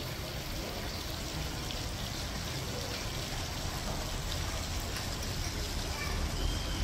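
Outdoor street ambience: a steady hiss of town noise with low rumble and faint, indistinct voices of passers-by.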